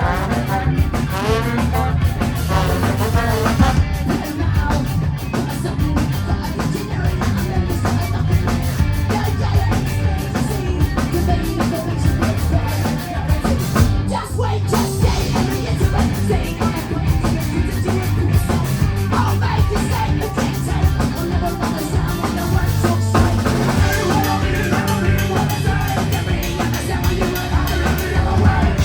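Ska band playing a song live on stage, drum kit and full band going steadily at concert loudness.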